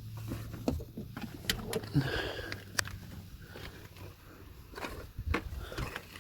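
Scattered light clicks and knocks at irregular times, with some rustling between them: handling noise.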